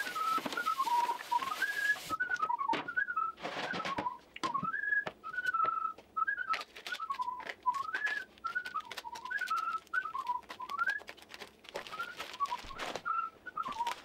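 A man whistling a wandering tune, with short crackles and clicks of plastic wrap being handled as it is pulled off a pork butt.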